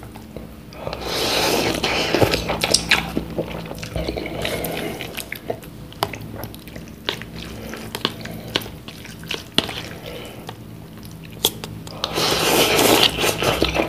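A person slurping instant cup noodles: two long, loud slurps, one about a second in and one near the end. Between them come chewing and small clicks.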